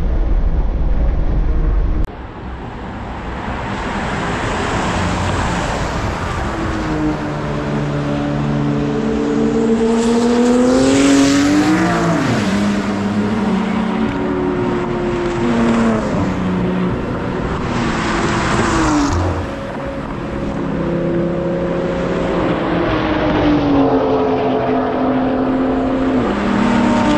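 About two seconds of steady engine drone inside a car, then cars racing past one after another on a track's straight. Each engine note climbs in pitch as the car nears and drops sharply as it goes by, several times.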